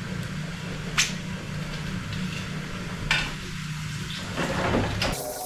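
Dishes and kitchen things being handled at the sink: a sharp click about a second in and a clatter at about three seconds, over a steady low hum.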